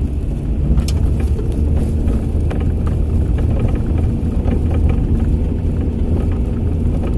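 Car engine and tyre rumble heard from inside the cabin while driving on a bumpy, partly frozen road, steady and low, with scattered light knocks and rattles from the rough surface.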